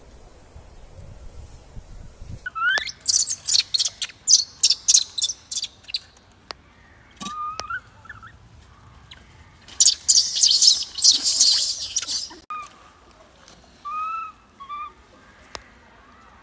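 Baby macaque crying: a run of short shrill screams about three seconds in, a longer harsh screaming bout about ten seconds in, and thin rising chirp-like whimpers in between and near the end.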